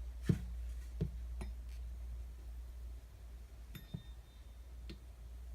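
A few sharp knocks and clinks of a steel round knife against a hard work surface, spaced irregularly, one near the middle ringing briefly. A steady low hum runs underneath.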